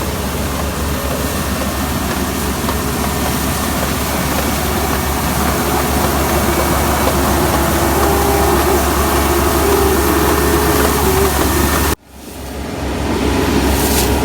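Kubota ER470 combine harvester running steadily under load as it harvests rice, a loud engine and machinery drone. About twelve seconds in the sound cuts out abruptly and quickly builds back up.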